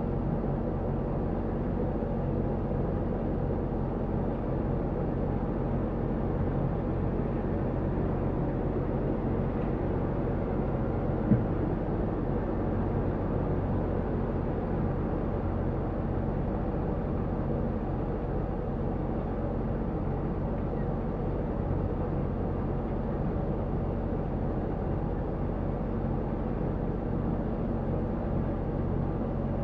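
Motor yacht's inboard engine running at slow speed, a steady low drone. A single sharp click about eleven seconds in.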